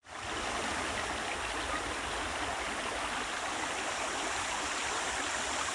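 Steady rush of flowing water, as from a stream.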